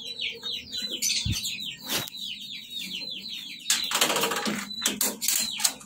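Many small cage birds in an aviary chirping in a fast run of short, high, falling notes. A louder, harsher call breaks in about four seconds in, and a couple of sharp knocks come in the first two seconds.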